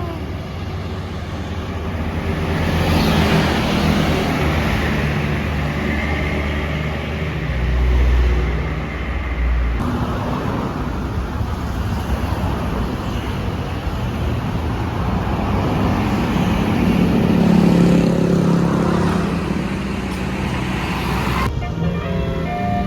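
Road traffic going by: vehicle engines and tyre noise swelling and fading as vehicles pass, with a heavy low rumble about eight seconds in and another loud pass later on.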